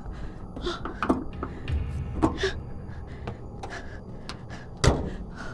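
Scattered knocks and rustling, then one loud slam near the end: a car's bonnet being shut.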